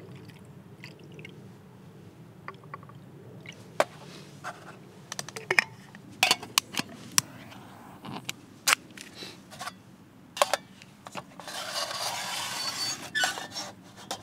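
Fuel poured from a bottle into a small brass alcohol-stove burner, then a run of sharp clicks and light metal clinks as the burner is lit and a metal windscreen and pot set over it, with a short hissing rush about twelve seconds in. A low steady hum underlies it.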